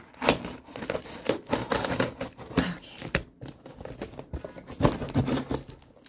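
A dull knife scraping and sawing through packing tape on a cardboard box, with irregular scratches, then tape tearing and cardboard flaps crinkling as the box is pulled open.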